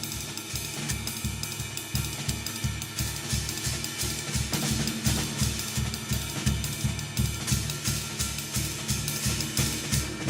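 Drum kit playing a steady jazz groove on bass drum, snare and cymbals, live.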